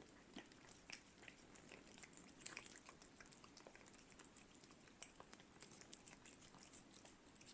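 Cat eating a lickable churu treat: faint, irregular wet licking and chewing clicks.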